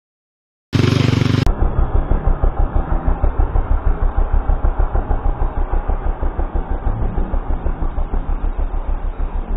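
Small engine running steadily with an even chugging beat, about five pulses a second, preceded by a brief loud burst about a second in.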